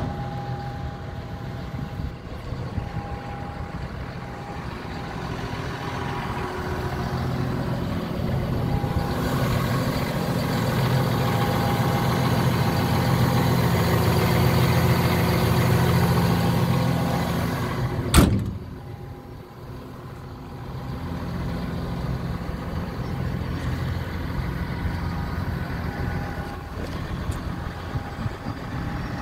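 Hyundai Robex 220LC-9A crawler excavator's diesel engine idling steadily, growing louder for a while and then dropping back. One sharp knock sounds about two-thirds of the way through.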